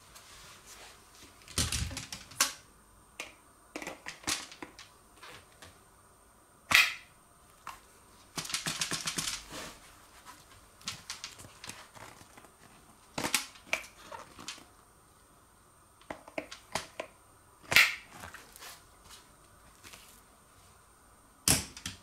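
Sharp plastic clicks and knocks from a Makita CL282FD cordless stick vacuum's extension pipe being fitted into and released from the body's one-touch pipe lock. There is a short run of rapid clicking about nine seconds in, and the loudest single clicks come about seven and eighteen seconds in.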